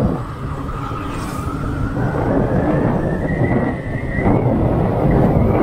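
Engine and road noise of a moving vehicle, a steady rumble, with a thin whine that rises in pitch over the first three seconds or so and then holds.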